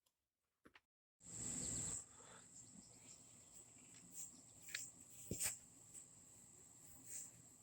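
Silence for about a second, then outdoor ambience led by a steady high-pitched insect trill, like crickets. A short rush of noise comes as the sound begins, and two sharp clicks fall a little past the middle.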